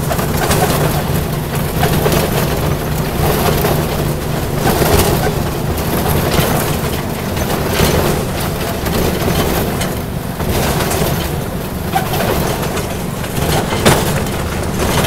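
Ride-on backyard railroad locomotive running along the track: a steady low engine hum with irregular knocks and rattles.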